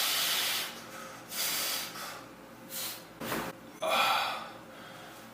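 A man breathing hard from the strain of a towel-assisted upper-back stretch: about five short, sharp breaths in and out, with a brief low knock about three seconds in.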